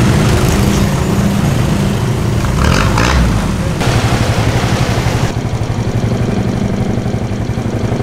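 A motor vehicle's engine running with a rapid, even low throb, loud and close, with noise over it that shifts abruptly twice, about four and five seconds in.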